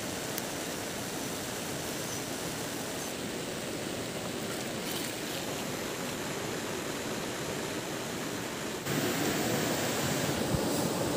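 Steady rushing of a nearby stream, a hissing wash of water that steps up louder about nine seconds in, with a few faint taps.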